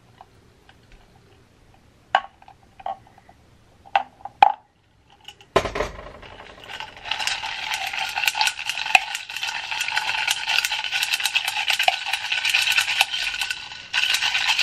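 A spoon stirring iced coffee in a glass, clinking steadily against the glass and the ice. A few separate clinks come first, then continuous rapid clinking from about six seconds in.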